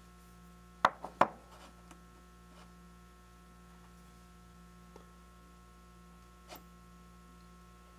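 A steady mains hum, with two sharp knocks about a second in as a steel MT2 dead center is set down on a wooden workbench beside steel round stock, then a few faint taps.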